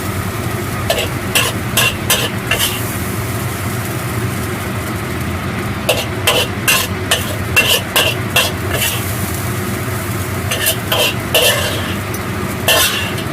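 Metal spatula scraping and clinking against a wok while the saucy stir-fried eggplant is scooped out onto a plate, coming in bunches of sharp scrapes and knocks over a steady low background hiss.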